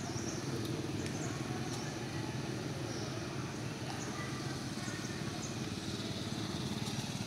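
Steady low background rumble, with a few faint short high squeaks or chirps over it.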